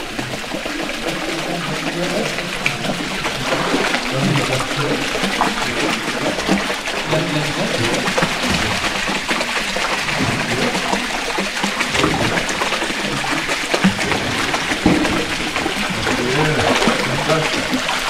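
Water running down a rock chute into a pool at its foot, a steady hiss and splash with faint voices.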